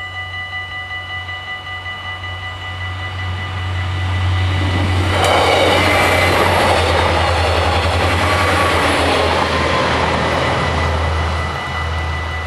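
Railway crossing bells ringing steadily as a Stadler GTW diesel railcar passes over the level crossing. The train's engine and wheel noise builds in about four seconds in, is loudest for the next several seconds and eases near the end, with the bells still ringing.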